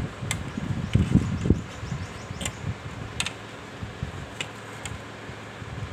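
Scissors cutting trim off a plastic steamer handle: several sharp snips spread out over the seconds. Low handling and rubbing sounds from the plastic tray are strongest in the first second and a half.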